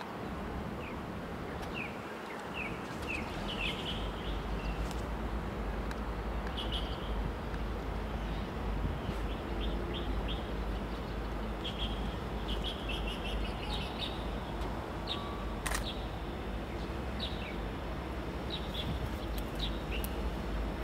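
Small birds chirping in short, high calls again and again over a steady low rumble and outdoor noise, with a single sharp click about three-quarters of the way through.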